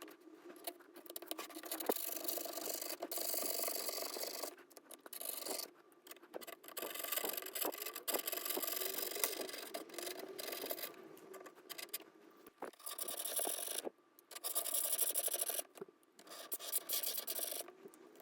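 Repeated scraping and rubbing as leftover battery adhesive is worked off the inside of a MacBook Pro's bottom case. It comes in stretches of a few seconds with short pauses between them.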